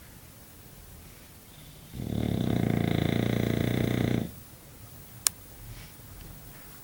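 English bulldog snoring: one long, loud fluttering snore lasting a little over two seconds, starting about two seconds in. A single sharp click follows about a second after the snore ends.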